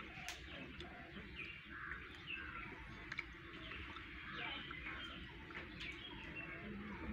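Small birds chirping in short, scattered calls over a low steady background rumble, with one sharp click just after the start.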